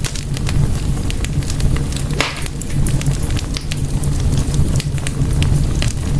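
Wood fire in a fireplace crackling, with frequent irregular sharp pops over a steady low rumble of the flames, and a brief hiss about two seconds in.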